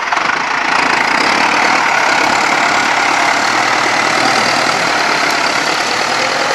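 Farm tractor's diesel engine running steadily under load as it skids a large log across the ground.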